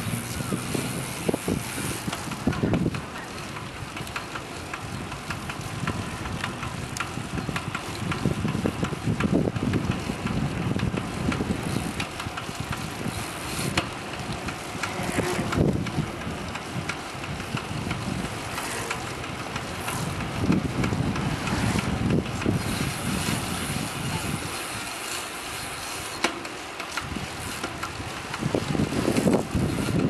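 A bicycle being pedalled while it makes an abnormal noise that the rider cannot explain, over wind and road noise, with louder swells every few seconds.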